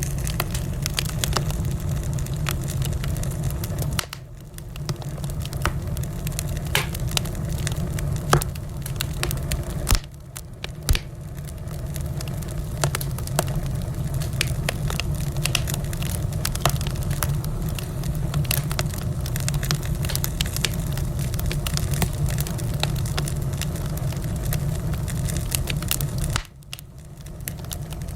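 Wood fire crackling, with many sharp pops and snaps over a steady low rumble of the flames. The sound dips suddenly three times, about 4, 10 and 26 seconds in, then comes back.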